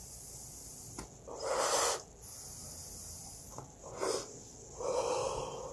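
A person taking a hit from a cartridge vape pen and breathing the vapour in and out: several heavy breaths, the loudest about a second and a half in and two more near the end.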